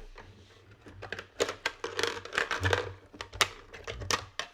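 Quick clicks, taps and light rattles of hands handling a toy vending machine and the toy snack packet it has just dispensed, in a run of sharp knocks from about a second in.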